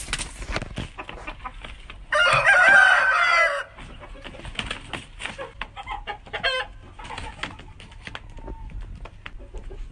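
Aseel roosters sparring, with wings flapping and scuffling in short clicks throughout. A rooster crows loudly once, about two seconds in, for about a second and a half, and short clucks follow later.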